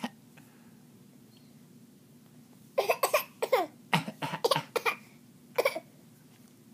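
Fake coughing: short, sharp coughs in quick groups starting about three seconds in, about ten in all, the last one on its own.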